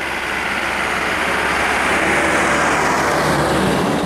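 Tata box truck passing close by, its engine and tyre noise swelling to a peak about three seconds in, then falling away.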